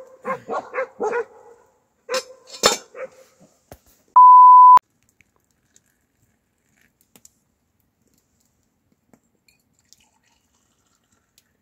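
A dog barks in a quick run of short barks, then gives another short burst about two seconds in. Just after four seconds a loud steady beep tone sounds for about half a second, and after it there is near silence.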